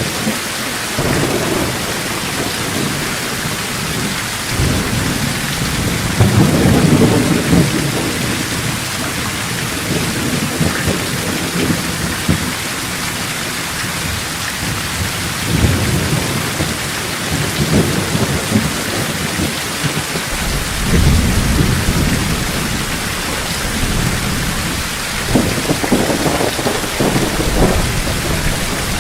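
Heavy thunderstorm: steady downpour of rain with several low, rolling rumbles of thunder, the loudest about six seconds in.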